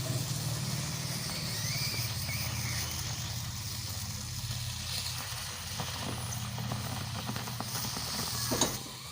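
Stove burner flame running with a steady low rumble while a lime chars over it, with a brief click near the end.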